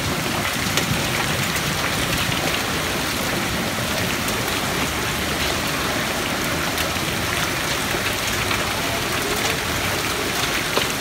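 Hail and heavy rain pelting a wet paved street: a steady, dense hiss with many small sharp ticks of hailstones striking the ground.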